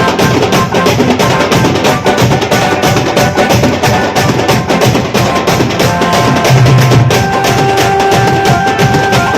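Loud band party music driven by fast, dense drumming, with a steady held melodic note coming in about seven seconds in.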